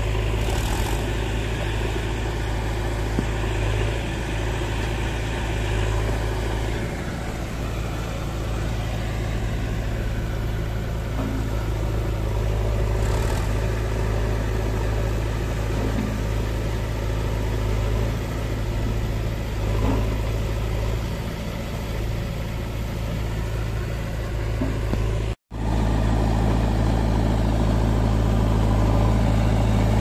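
Massey Ferguson tractor's diesel engine running steadily while it hauls and tips a trolley of sand. The sound cuts out briefly near the end, then diesel engines run louder as a JCB 3DX backhoe loader loads the tractor's trolley.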